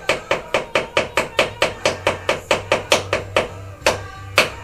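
Hammer tapping an old screwdriver used as a punch, about four quick blows a second, then a few slower, harder blows near the end: punching a hole through a camshaft oil seal so it can be pried out.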